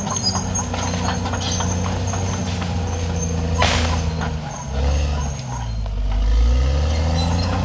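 CAT D6R XL bulldozer's diesel engine running steadily. About two-thirds of the way through its note sags low and then climbs back as the dozer pushes into brush, with a short hiss near the middle.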